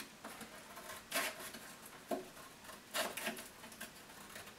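Scissors snipping through corrugated cardboard, a few separate cuts with pauses between them.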